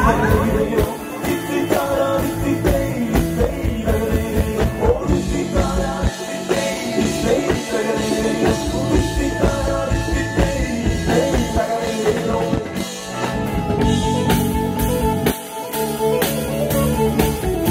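Live band playing rock music: singing over electric guitar with a steady beat.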